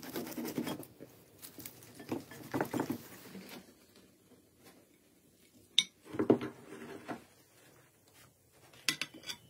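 Hands pulling apart a whole tandoor-baked fish, its crisp skin crackling and rustling for the first few seconds, followed by a few sharp clinks and knocks of a knife against the serving platter and plates.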